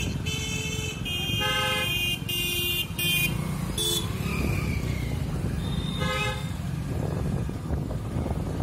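Busy street traffic: vehicle horns honk repeatedly through the first four seconds and once more about six seconds in, over a steady low rumble of engines and road noise.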